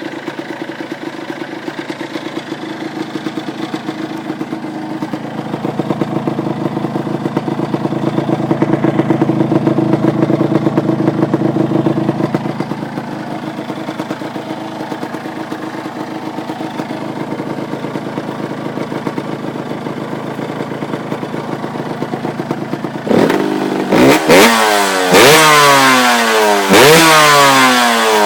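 Yamaha DT125R's single-cylinder two-stroke engine idling through a cut-down Bigone rear silencer, the note swelling a little partway through. Near the end it is blipped sharply several times, each rev rising and falling back.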